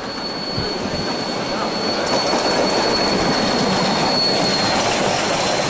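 Train running along the track, with a steady high-pitched wheel squeal over the rumble of the running gear. The noise grows louder over the first two seconds, then holds steady.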